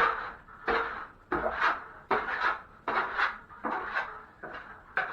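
Drywall taping knife scraping joint compound in quick repeated strokes, about two a second, each starting sharply and trailing off: feathering the edges of the first coat of mud.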